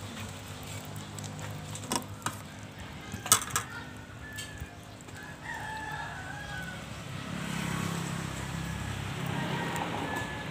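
A rooster crows once, a long call about halfway through. Before it come a few sharp clicks, the loudest about three seconds in, and a steady low hum runs throughout.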